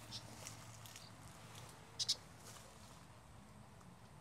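Faint rustling of footsteps in tall dry grass, with two quick soft crackles about two seconds in.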